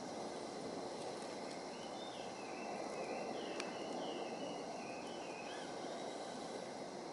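Steady outdoor background noise. From about two seconds in, a bird calls a series of short chirping notes for a few seconds, and a single click comes midway.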